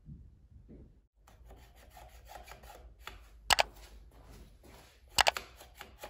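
Hands rubbing and handling the opened plastic handlebar housing and wiring of an electric scooter. There is a sharp click about three and a half seconds in and a quick double click a little after five seconds.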